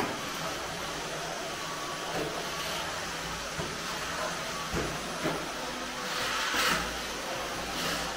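Steady hissing noise with a few short swishes, the strongest about six and a half seconds in.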